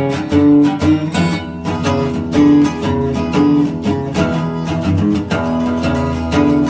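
Background music: upbeat plucked and strummed acoustic guitar with a steady beat.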